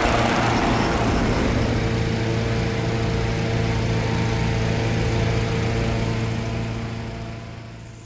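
An engine running steadily, fading away over the last two seconds or so.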